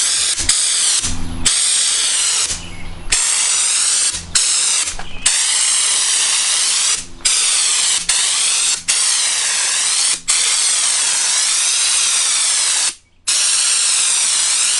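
Compressed-air spray gun from the Raptor liner kit, run at 60 PSI, spraying two-part textured bed liner: a loud hissing blast of air and coating that swells and fades as the gun sweeps. It stops briefly several times as the trigger is let off, with the clearest break about 13 seconds in.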